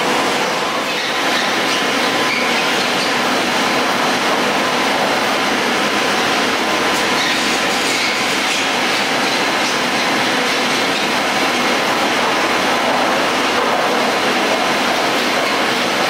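A 1986 Garaventa detachable chairlift running: a steady mechanical rumble and whir of haul rope and wheels, with a faint steady whine.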